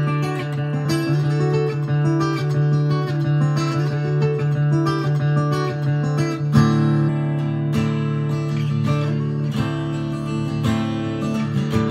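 Steel-string acoustic guitar in DADGAD tuning played solo, single notes and slides ringing over a sustained low drone, with a loud full strummed chord about six and a half seconds in.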